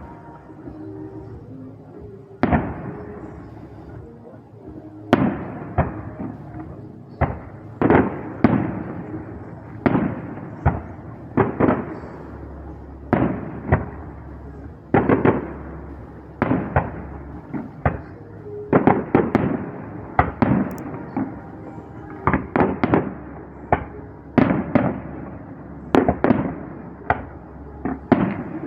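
Aerial fireworks bursting in a steady string of sharp bangs, each with a rolling echo trailing off, coming faster and closer together in the second half.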